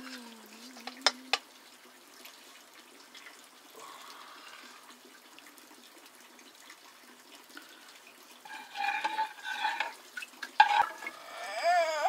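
Cooking sounds of pots and water: two sharp metal knocks about a second in, then a quiet stretch. Near the end come voices and a wavering call.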